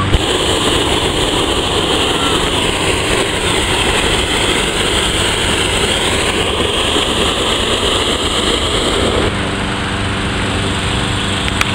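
Hot air balloon propane burner firing in one long, steady blast to heat the envelope during inflation; it stops abruptly about nine seconds in, leaving a steady engine hum.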